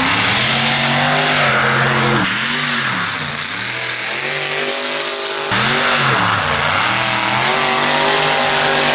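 A mega mud truck's engine revving hard as it races through mud, its pitch climbing and dropping back again and again over a loud rushing noise.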